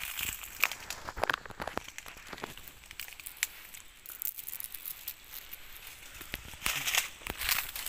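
Leaves rustling and crackling in a run of sharp, irregular clicks, thickest near the end.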